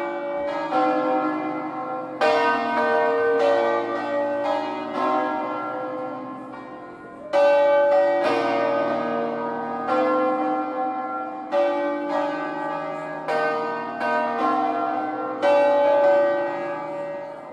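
Full peal of a five-bell Ambrosian ring in B-flat, cast in 1859 by Felice Bizzozero and rung by hand, the bells swinging full circle on their wheels. Strokes fall at uneven intervals and their ringing overlaps, with a lull near the end.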